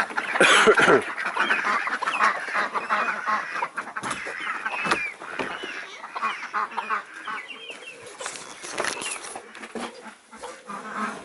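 Hens clucking over and over, among them a broody hen sitting on a clutch of turkey eggs, with scattered short knocks and rustles.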